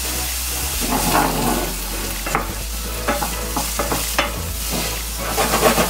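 Chopped vegetables sizzling in olive oil in a nonstick sauté pan, stirred with a wooden spoon that scrapes across the pan in repeated strokes. A steady low hum runs underneath.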